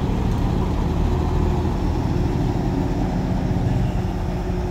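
Heavy diesel engine running with a steady, even low rumble.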